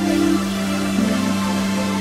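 Electronic music: a low synth note held steady, with short higher synth notes changing above it.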